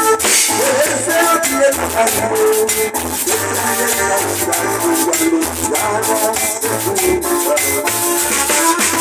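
Live band playing: drum kit with cymbals, Yamaha keyboard and electric bass, with a steady beat and a pitched keyboard line over the bass.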